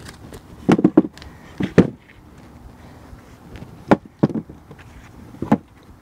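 About half a dozen dull thuds and knocks at irregular intervals, from freshly dug potatoes being set down into a garden wagon's ribbed plastic bed, mixed with footsteps on wooden boards.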